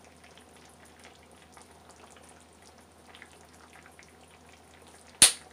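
Faint bubbling and crackling of a chicken and potato stew simmering in a pan on a low gas flame, with a single sharp knock near the end.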